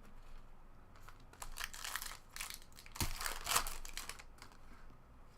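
Crinkly wrapper of a trading card pack being torn open and crumpled by hand, a run of crackling bursts from about a second and a half in to about four seconds in, loudest near the middle.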